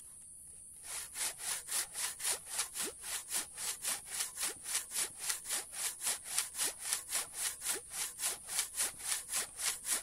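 Handsaw cutting through a block of very hard mangosteen wood, starting about a second in and then going in fast, even strokes, about three and a half a second.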